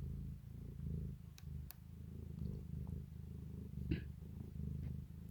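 Cat purring: steady low pulsing that swells and fades in a slow rhythm, with a small click about four seconds in.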